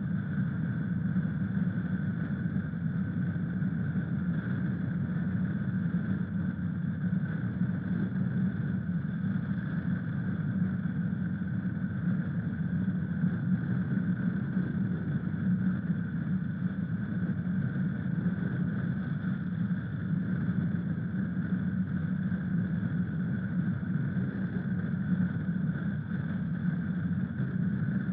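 Honda CRF1000L Africa Twin motorcycle's parallel-twin engine running steadily, with no change in pitch or level.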